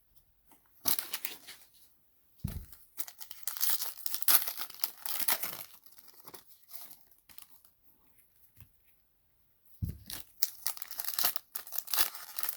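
Foil trading-card packs being torn open and their wrappers crinkled, in crackly bursts with a quiet pause of about two seconds in the middle and a couple of dull thuds.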